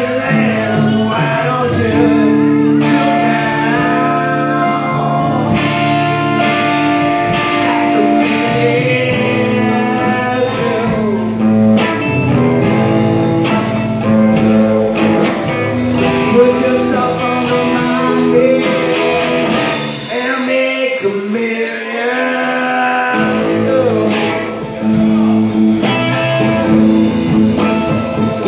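Live blues band playing: electric guitars, bass and drums with a woman singing. The low end drops out for a couple of seconds about two-thirds of the way through.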